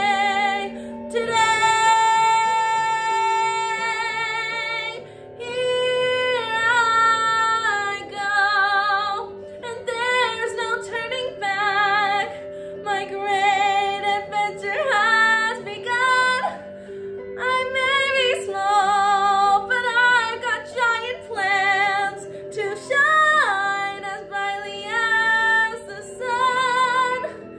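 A woman singing a musical-theatre ballad solo over an instrumental backing track, holding long high notes with vibrato, the longest a few seconds held about a second in.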